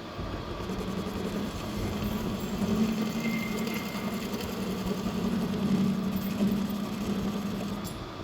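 Metal lathe running with a steady hum that comes in just under a second in and drops away near the end.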